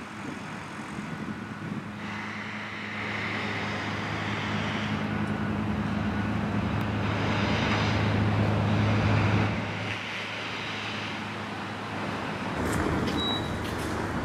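Street traffic with one motor vehicle's engine humming steadily and growing louder for several seconds as it comes closer. The hum drops off sharply about ten seconds in.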